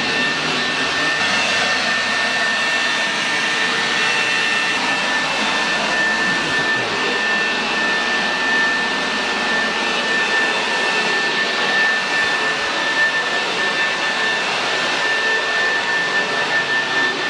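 Steady, loud rush of an electric blower motor, with a thin, even high whine over it.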